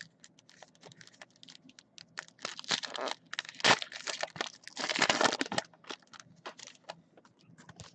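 Foil trading-card pack wrappers being torn open and crinkled by hand: irregular crackling with two longer bursts of crinkling and tearing.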